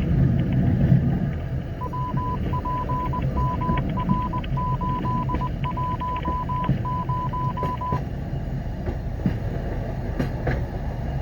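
Low running rumble of a slow-moving rail vehicle, with a run of short electronic beeps at one pitch, about two a second, from about two to eight seconds in.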